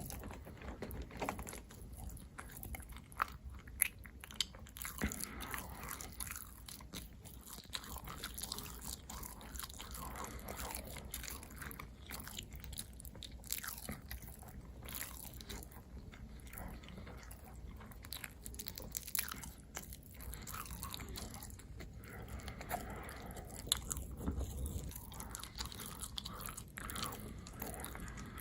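Close-miked eating sounds: a person biting and chewing food, with many sharp, irregular clicks and crunches.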